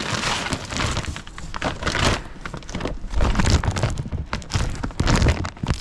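Irregular knocks, clatter and crinkling as parts and containers are handled at an ultrasonic parts cleaner.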